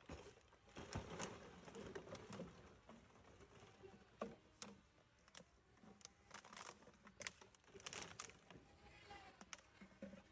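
Near silence: room tone with faint scattered clicks and knocks.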